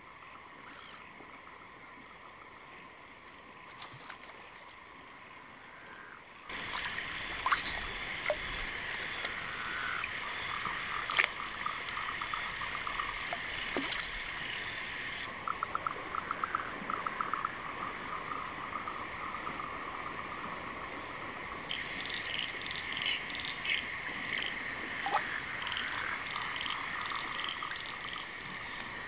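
Night chorus of frogs calling, a steady din with rows of fast trilling pulses. It is faint at first and much louder from about six seconds in, with a few sharp clicks over it.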